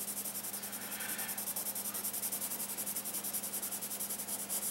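Pencil scratching across sketchbook paper in a fast, even run of short back-and-forth shading strokes, laying in dark tone.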